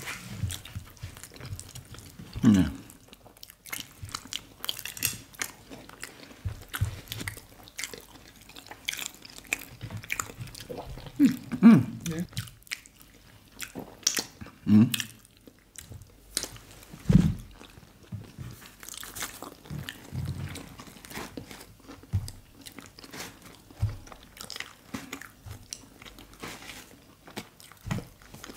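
Close-miked mouth sounds of eating soft agege bread, fried plantain and mashed ewa agoyin beans: irregular chewing, wet lip smacks and clicks, with a few louder bites and mouth noises scattered through.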